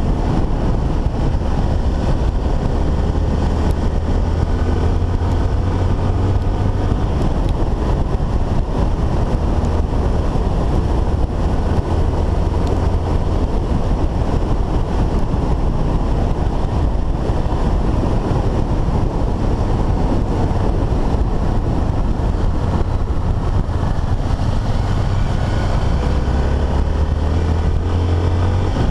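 Dual-sport motorcycle's single-cylinder engine running steadily at cruising speed on a dirt road, heard from on the bike, with wind rushing over the microphone.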